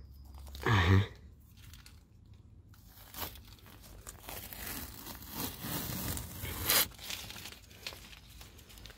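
Blue painter's masking tape being peeled off a boat hull by hand: irregular crackling and tearing as the tape pulls away along the antifouling paint line, strongest about two-thirds of the way through.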